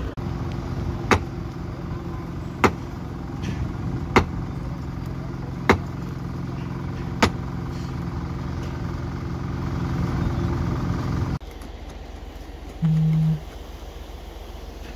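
Construction machinery engine running steadily, with five sharp knocks evenly spaced about a second and a half apart. Near the end it cuts to quieter background with one short low tone.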